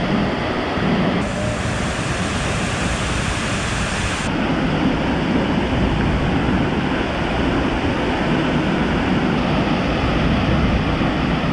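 Waterfall crashing into its pool, a loud, steady rush of falling water. The hiss brightens from about a second in until about four seconds in.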